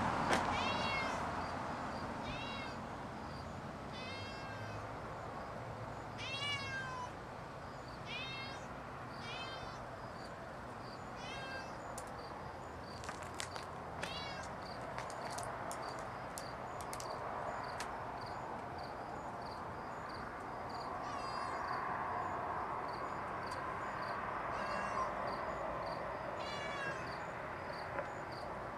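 Domestic cat meowing repeatedly, a short call every second or few, with a quieter stretch midway.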